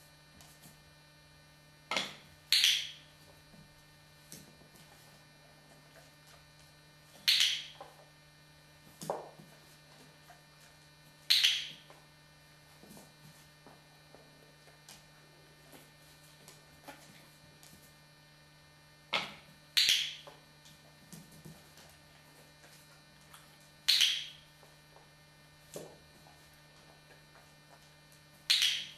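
Dog's claws clicking on a laminate floor: about nine sharp clicks at irregular intervals, some in quick pairs, over a steady low electrical hum.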